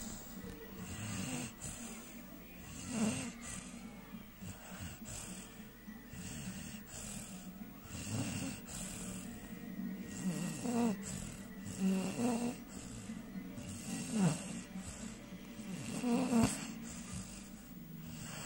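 American Staffordshire Terrier snoring in its sleep: rough, rattling breaths, one every one to two seconds, some much louder than others.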